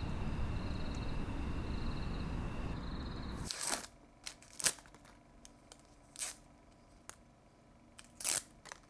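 Steady low rumble with a repeating high chirp, cut off suddenly about three and a half seconds in. Then the paper wrapper of an adhesive bandage is torn and peeled open in several short, sharp rips and crinkles.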